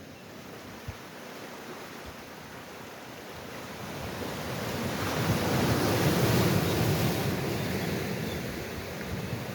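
Sea waves: a wave swells and breaks about five to seven seconds in, then washes back and fades.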